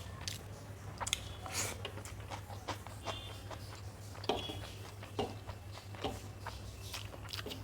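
A person eating a meal of rice, dal, aloo bhorta and omelette: irregular soft chewing and wet mouth clicks, with a steady low hum underneath.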